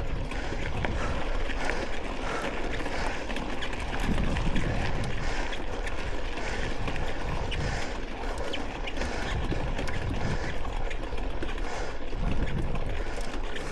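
Mountain bike riding over a dirt trail: tyres on the ground, the bike rattling over bumps, and wind rushing over the microphone.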